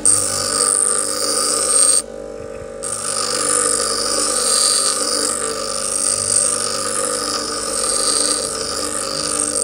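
Bench grinder running with a hardened steel file pressed against its wheel, grinding the file's teeth off: a steady motor hum under a harsh grinding hiss. About two seconds in the hiss stops briefly as the file is lifted off the wheel, then starts again.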